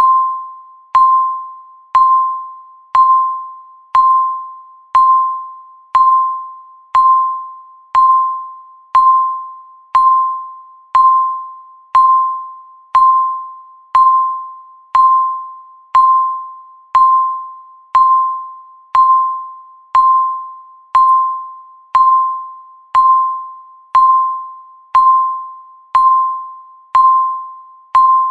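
Countdown timer's electronic beep, one short high tone struck every second and fading away before the next, marking the seconds as they count down.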